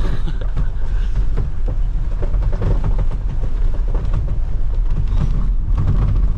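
A vehicle driving over a bumpy road: a steady low rumble with many small knocks and rattles from the body jolting over the ruts.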